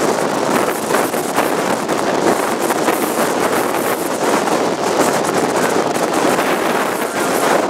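Strong wind buffeting the microphone: a loud, steady rush of noise that flutters with the gusts.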